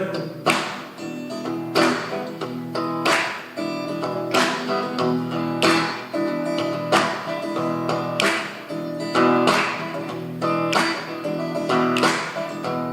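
Acoustic guitar strummed in a steady rhythm, chords ringing, with a strong strum about every second and a quarter and lighter strums between.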